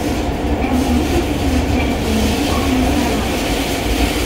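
Fukuoka City Subway 1000N series train heard from inside the car while running: a steady rumble of wheels on rail, with the wavering tones of its inverter-driven traction motors.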